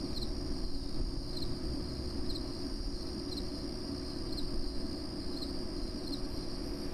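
Night-time insect chorus: a steady high-pitched trilling with faint short chirps about once a second, over a low background rumble.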